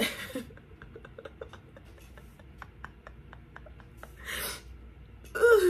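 A person sniffing, a short sharp breath in through the nose about four seconds in, over a run of faint small clicks; a voice starts just at the end.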